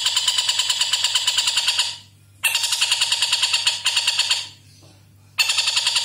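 Caged kingfisher (tengkek buto) giving its long, fast rattling call, about eight sharp notes a second, in three runs broken by two short pauses.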